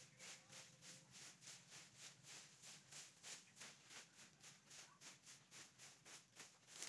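Faint, rapid rhythmic swishing of dry leaves being swept across the ground, about three strokes a second.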